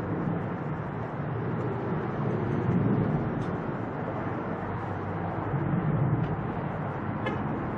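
Jet engine noise from a twin-engine Boeing 767 airliner climbing away after takeoff: a steady low rumble that swells and eases a little.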